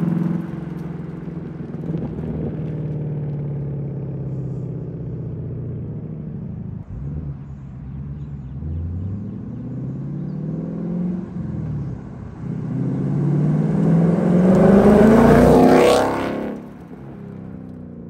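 2022 Ford Mustang Mach 1's 5.0-litre V8 running through a Steeda X-pipe and the factory active exhaust: the car pulls away, then another pass comes on, the engine climbing in pitch as it nears. It is loudest about 15 seconds in and drops sharply in pitch as it goes by, then fades away.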